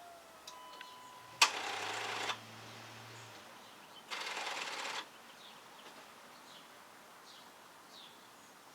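Two bursts of rapid clicking of about a second each, the first starting with a sharp click, as the Dodge Durango's key is turned: the starter solenoid chatters without cranking the engine, a sign of too little current reaching the starter through bad battery cables.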